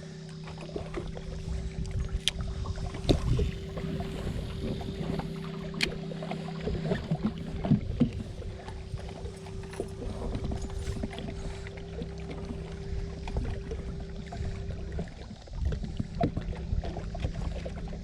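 Boat motor running steadily at low speed with a constant hum, over low rumbling noise from water and wind, with a few scattered knocks.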